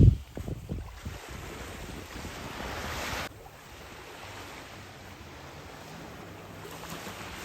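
Sea waves washing ashore with wind buffeting the microphone, loudest in a low gust right at the start. The sound drops abruptly about three seconds in, then the quieter surf continues.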